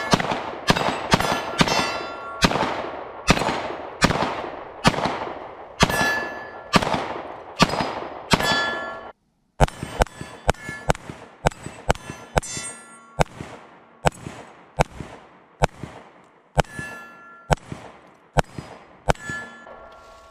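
A Glock 19 Gen 5 9mm pistol fired in a rapid string at steel targets, roughly one to two shots a second, each shot followed by the ringing clang of a hit steel plate. The string breaks off for a moment about nine seconds in, then resumes, with the shots spaced further apart near the end as the smaller plates are engaged.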